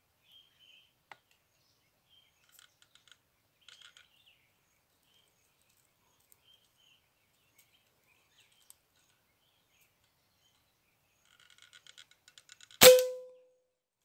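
Small birds chirping faintly, then near the end a single sharp shot from a PCP air rifle, followed by a short metallic ring that fades within about half a second.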